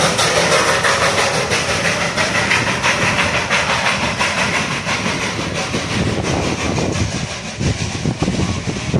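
Darjeeling Himalayan Railway narrow-gauge toy train running close by, its wheels clattering steadily over the rails with a hiss, the sound thinning out in the last few seconds.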